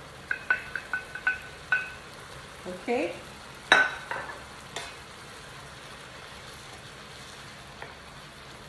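Wooden spoon tapping raw shrimp out of a glass bowl, about five ringing clinks in the first two seconds, then one sharp knock as the glass bowl is set down. Underneath, a steady low sizzle from the shrimp and ground-meat stuffing frying in an electric skillet.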